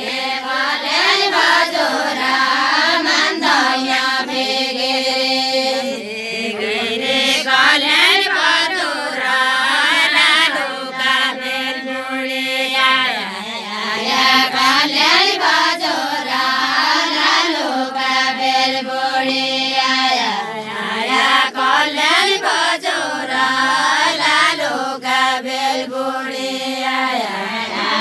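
A group of women singing a Deuda song together, unaccompanied: a chant-like melody repeated in phrases of about three to four seconds, each rising and falling.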